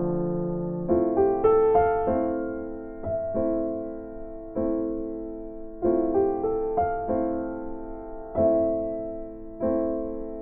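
Slow, gentle piano music: soft chords struck every second or so, each dying away before the next.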